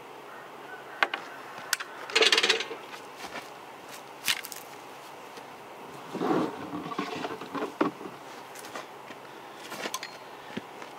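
Handling sounds of vintage top-handle chainsaws, which are not running, and a dial platform scale: a chainsaw is lifted off the scale and set down, then another is picked up. Scattered light clicks and knocks, with a short rattling scrape about two seconds in and a longer scraping, rustling stretch around six to eight seconds.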